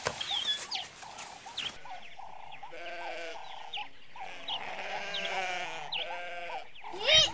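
Sheep bleating, several wavering calls one after another from about three seconds in, with another rising bleat near the end.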